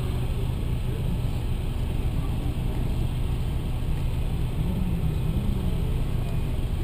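MINI Cooper S JCW GP's turbocharged four-cylinder engine idling steadily, heard from inside the cabin while the car stands still.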